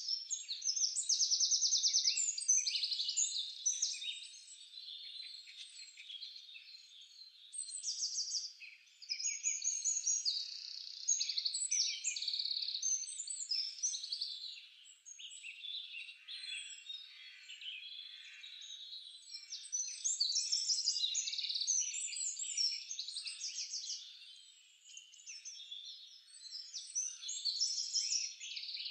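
Many small birds chirping and singing at once, a dense chorus of short, high, overlapping calls that swells and fades in waves.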